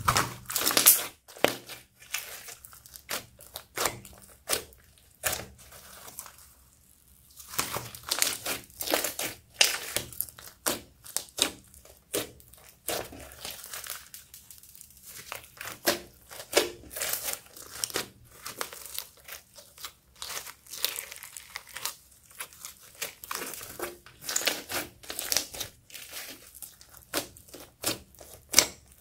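Thick glittery slime studded with foam beads being stretched, pressed and poked by hand: a quick, irregular run of sticky pops, clicks and crackles, with a couple of short lulls.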